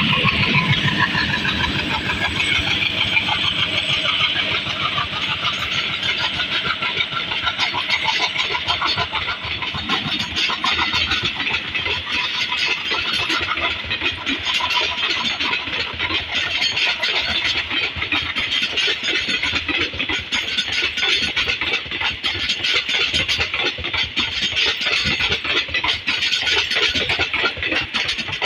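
WDM3D Alco diesel locomotive's 16-cylinder ALCO 251 engine running steadily, with a rapid, continuous chugging. A falling tone sounds over the first couple of seconds.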